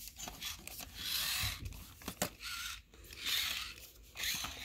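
Handling noise: four or five short bursts of rustling and rubbing, as of fabric or plastic being moved about.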